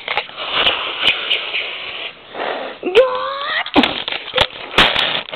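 Fingers rubbing and knocking on the camera body and microphone, a rough crackling noise full of clicks. About three seconds in comes a short vocal whine that rises in pitch and then holds.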